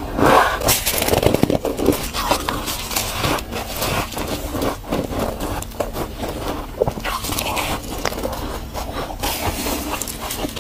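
Mouthful of powdery freezer frost crunching as it is chewed, a dense run of crisp crackles. Near the end, gloved hands scrape and scoop more frost from the chest freezer's walls.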